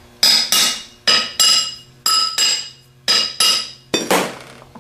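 Ball-peen hammer tapping the outer rim of a 37MT starter's end housing as it is spun on the armature shaft, sizing the new bushing onto the shaft: about a dozen quick, ringing metal strikes in groups of two or three. The tapping stops shortly before the end.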